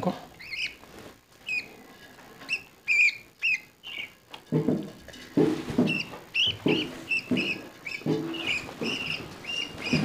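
Budgerigar chicks about two to three weeks old cheeping: a string of short squeaky calls, sparse at first and coming faster and louder in the second half.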